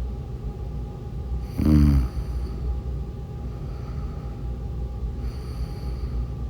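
A woman snoring: one loud snore about a second and a half in, lasting about half a second, then a fainter breath near the end, over a steady low rumble.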